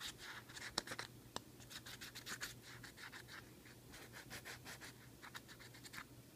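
Faint, irregular scratching strokes of a Crazy Glue applicator being rubbed over the rough surface of a 3D-printed part, with a couple of sharper clicks about a second in.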